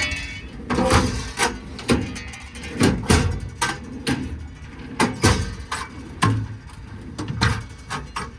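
American Eagle twist-lock tool drawers in a service-body compartment being pulled open and pushed shut, a run of sharp clacks and knocks with rattling in between, about one or two a second.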